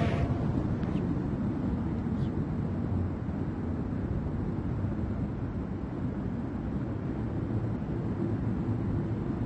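Steady low rumbling background noise with no voices: the room tone of the prayer hall in a silent pause between recited parts of the prayer.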